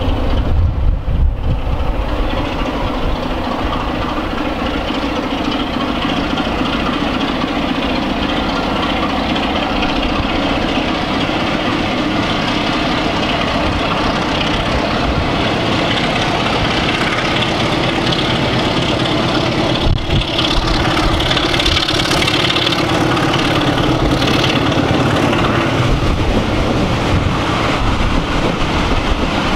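Diesel locomotive's engine working as it hauls a train of coaches towards and past the listener. The coaches' wheels rattle over the rails as they go by.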